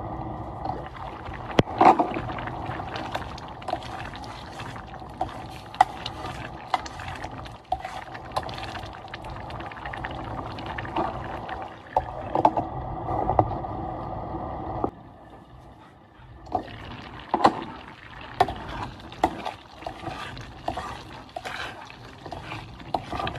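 Pot of chicken rice porridge boiling on the stove, bubbling steadily with frequent clicks and knocks. After a change about fifteen seconds in, a spoon stirs the thick rice and taps against the pot.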